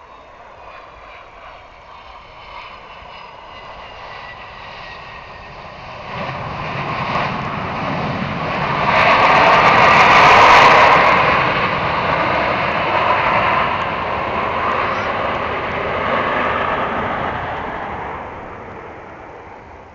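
Airplane engines taking off along the runway: the sound builds, is loudest as the plane passes about ten seconds in, then fades away.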